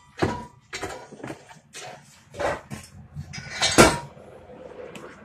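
Metal clanking and knocking from hands and tools working on a car's tubular exhaust header in the engine bay: a string of irregular clanks, the loudest nearly four seconds in.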